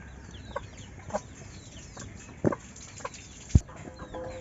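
Domestic chickens clucking, with small birds chirping in quick downward notes, and a sharp knock about three and a half seconds in.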